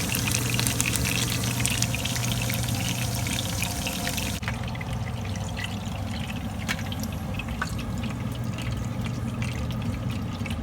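Hot oil sizzling and crackling as pieces of pufferfish deep-fry for karaage, with a steady low hum underneath. About four seconds in the sound cuts to a softer, sparser sizzle.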